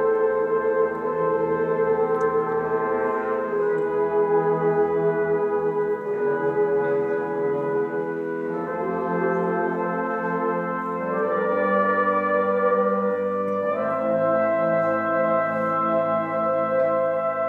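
Youth orchestra of strings and brass playing sustained chords that shift every one to three seconds.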